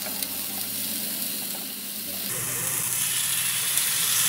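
Green chili peppers, carrot and garlic sizzling in hot oil in a nonstick frying pan. A little over two seconds in, the sizzle turns louder and brighter as marinated pork slices are tipped into the pan.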